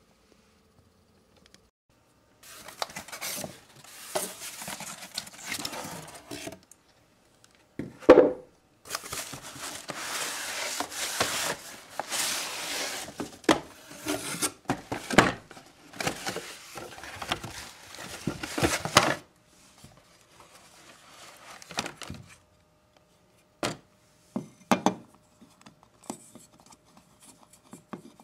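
A cardboard box being handled and opened: scraping and rustling of cardboard and packing material in long stretches, with sharp knocks, then a few scattered taps and clicks as the new garbage disposal is lifted out.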